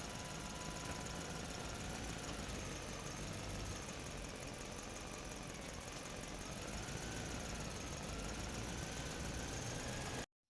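Small electric motor of an RC off-road truck running steadily under a hiss, its faint whine wavering slightly in pitch; it cuts off abruptly near the end.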